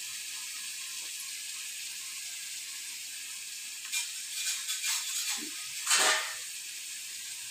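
Shredded cabbage, cauliflower and spinach sizzling in oil in a kadhai, a steady hiss. A few brief louder noises come about four to six seconds in.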